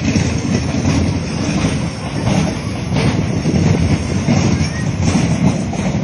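Passenger train running along the track, a loud steady rumble of the train and its wheels on the rails.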